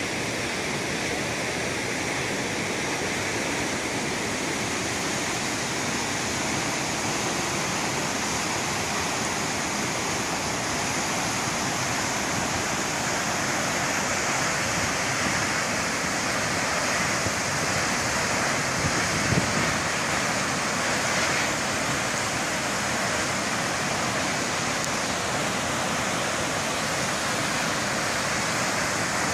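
Steady rushing roar of a large waterfall plunging and churning, unbroken throughout, with one brief knock about two-thirds of the way in.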